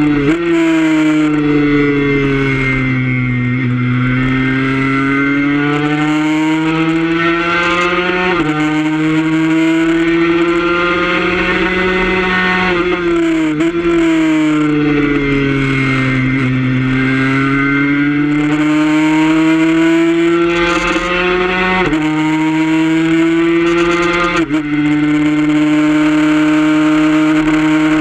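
Suzuki RG150 two-stroke single-cylinder race bike engine at high revs, heard from on board at speed. Its note sinks and climbs smoothly through the corners, with sudden jumps in pitch as gears are changed, over a steady rush of wind.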